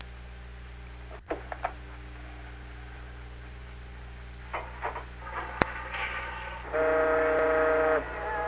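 A horn sounds one steady blast of just over a second near the end. Before it come a few light clicks and knocks over a low steady hum.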